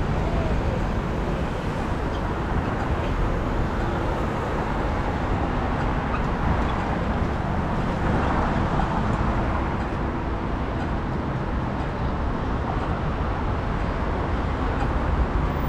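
Steady city street traffic noise, a constant rush without pauses.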